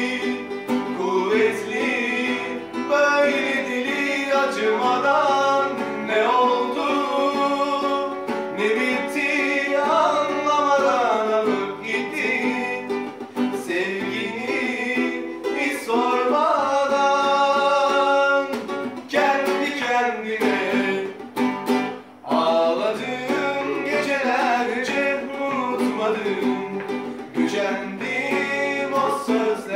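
Music: a Turkish pop ballad with plucked-string accompaniment and a sung melody that slides between notes.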